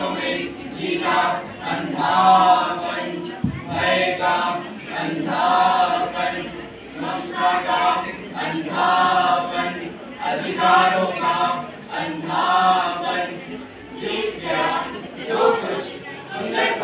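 Voices singing together in a slow chant-like song, in phrases of a second or two with wavering held notes.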